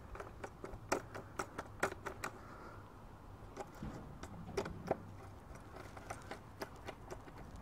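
Scattered light clicks and taps of a small hand tool turning bolts on a motorcycle tail tidy, snugging them up loosely rather than fully tightening them.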